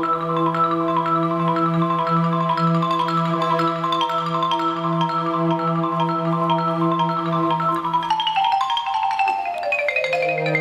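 Marimba playing rapid struck notes over a sustained chord held by the orchestra. About eight seconds in, the marimba sweeps down in a fast descending run as the low chord drops out, then comes back.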